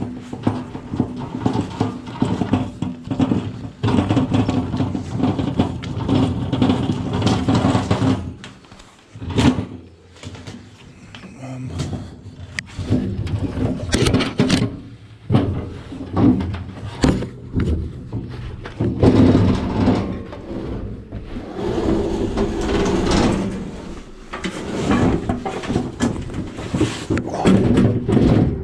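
A sheet-metal barbecue being handled, lifted and carried: repeated metal rattles, knocks and scrapes.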